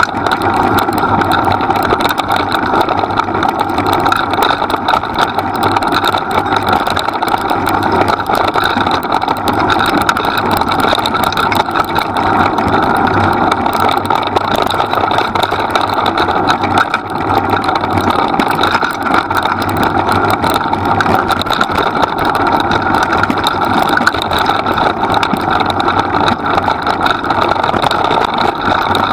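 Steady running drone of the training rig the two dogs are pulling along a forest track: a low hum with a rushing rolling noise over it, holding an even pace with only a brief dip about halfway through.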